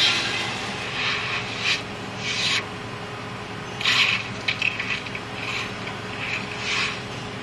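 Short rasping scrapes, about eight of them at irregular intervals, over a steady low engine drone.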